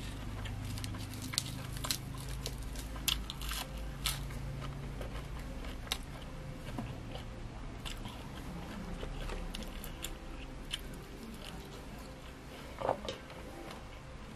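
Close-miked chewing of a mouthful of fresh herbs and spicy salad, with many small crisp crunches and wet mouth clicks. One louder mouth sound comes near the end.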